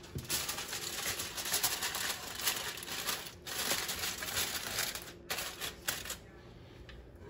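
Aluminum foil crinkling and crackling as hands press and crimp it down around the rim of a cooking pot: a dense run of quick crackles that stops about six seconds in.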